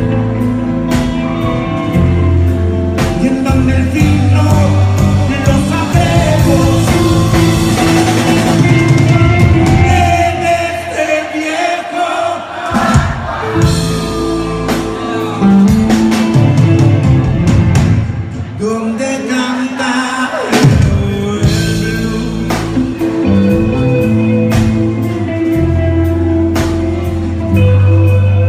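Live rock band playing loud through a club PA, heard from within the crowd: electric guitar and bass over a drum kit, with a steep downward slide about two-thirds of the way through.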